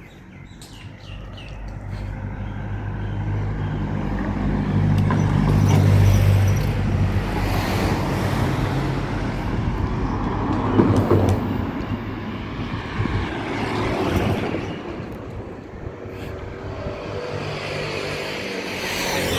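Motor vehicles passing close by on a road: a low engine hum builds to its loudest about six seconds in and fades with a rush of tyre noise, and more vehicles pass later.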